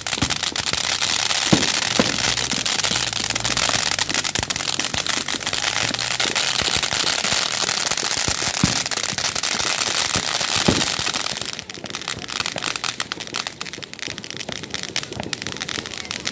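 Ground fountain fireworks hissing and crackling densely as they spray sparks, with a few louder sharp bangs. About eleven and a half seconds in the dense crackle drops away, leaving sparser pops and crackles.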